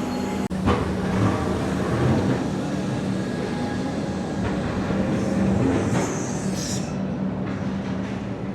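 Frankston-line electric suburban train running at the station platform: a steady hum with a brief high squeal about six seconds in.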